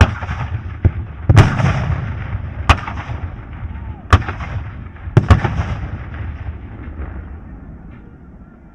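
Battle sound effect: sharp gunshot-like blasts and explosions, about six in all, the loudest about a second and a half in and two close together past the five-second mark, each followed by a rolling rumble over a steady din of distant fighting. The din fades away near the end.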